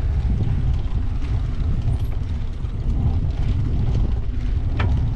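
Wind buffeting the microphone of a camera on a moving bicycle: a steady low rumble that rises and falls unevenly, with one short click near the end.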